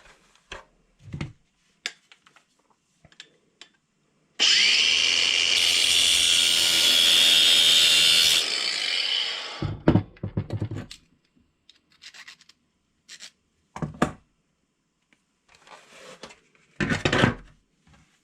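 A small power grinding tool spins up about four seconds in and grinds the worn tip of a 1.5 mm Allen (hex) wrench for about four seconds, resurfacing it, then winds down. A few short knocks of handling come before and after.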